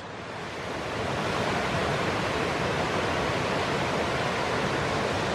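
A small creek waterfall, water rushing over a rock ledge in a steady, even rush. It grows a little louder in the first second and then holds.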